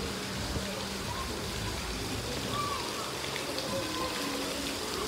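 Steady rush and splash of water in a water-park pool, with a spout pouring into it.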